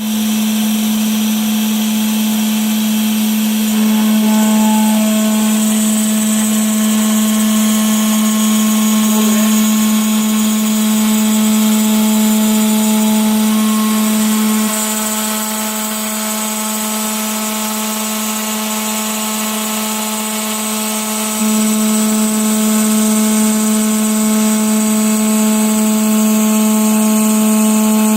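CNC router spindle milling a 15 mm aluminium plate with a 6 mm single-flute end mill at 16,000 rpm: a steady, pitched machining whine with fainter overtones above it. It drops a little in level for about seven seconds past the middle, then comes back up.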